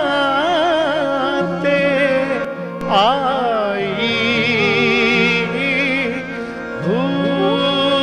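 A male voice sings a Punjabi Sufi kalam in a slow, heavily ornamented style, sliding and wavering through long melismatic phrases over harmonium and bowed sarangi. About three seconds in, a wide sweeping glide falls away, followed by a quick, shaking run.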